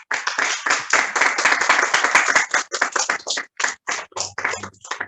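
Applause from a small audience: dense clapping that thins out to a few scattered claps near the end.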